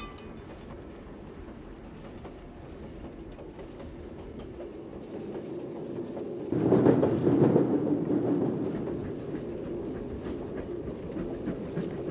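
Train wheels rolling on steel rails, the rumble building steadily. About six and a half seconds in the wheels clatter loudly for a couple of seconds over a railroad crossing diamond, then settle into scattered rail-joint clicks.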